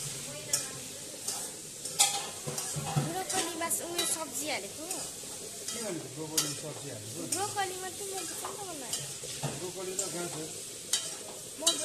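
Broccoli and carrots sizzling in a steel kadai over a gas flame. A metal spatula stirs them, scraping and clinking against the pan many times.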